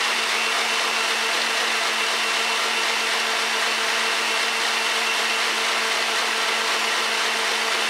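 Electric stand mixer running steadily at full speed, its whisk beating liquid cream into whipped cream.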